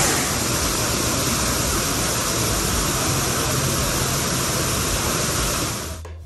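Steady rushing of water falling down a tiered cascading waterfall, cutting off near the end.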